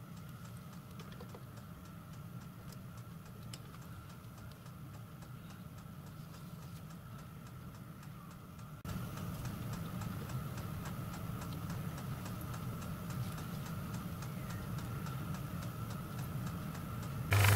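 Steady, evenly spaced clicking of a diesel heater's fuel pump, with a low hum underneath; it gets louder about nine seconds in.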